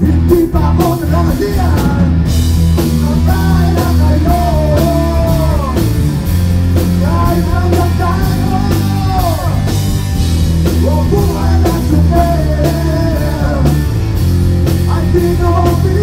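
Live rock band playing: a man singing into a microphone over electric guitar and a drum kit.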